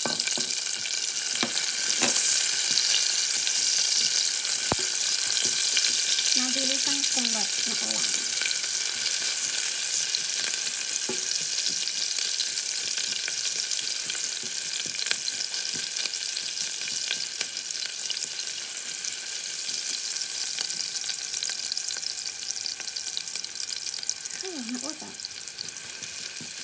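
Chopped onions sizzling in hot oil with garlic and ginger in a stainless steel pot, stirred with a spatula, with scattered clicks of the spatula against the pot. The sizzle jumps up as the onions go in, is loudest a couple of seconds in, and eases slowly.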